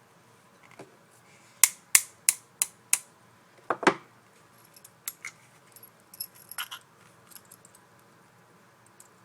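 Small metal parts of a disassembled Umarex Beretta PX4 Storm CO2 BB pistol being handled during reassembly: five quick sharp taps, then a heavier knock, then lighter clicks and handling rustle.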